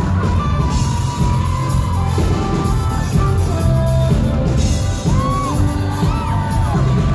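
Live band playing loudly over a club PA, with a woman singing into a microphone and the crowd whooping.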